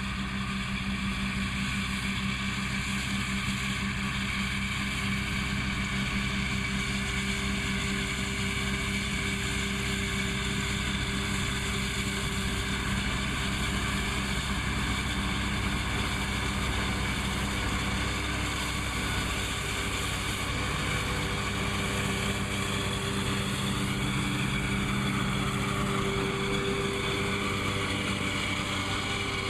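Massey Ferguson 2600-series tractor engine running at a steady speed while cutting hay.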